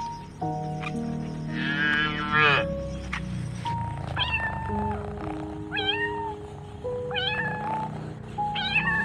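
A cat meowing four times, short calls that start high and drop, over light background music. One longer wavering animal call comes about two seconds in.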